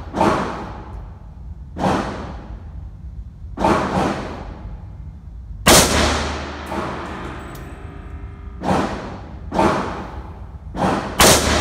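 Rifle shots from a Chinese Type 56 SKS in 7.62×39, echoing off the walls of an indoor range: about eight sharp reports spaced one to three seconds apart, the two loudest about halfway through and near the end.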